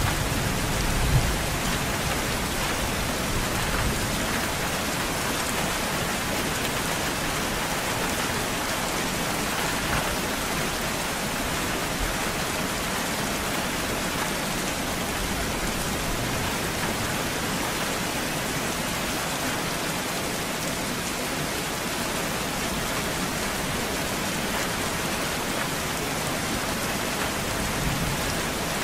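Steady rain falling, a dense even hiss. A low thunder rumble fades out in the first second or so.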